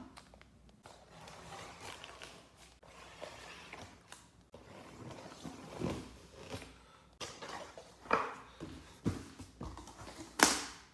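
Parts and packaging being handled during unboxing: irregular rustling with scattered knocks, the sharpest about ten seconds in.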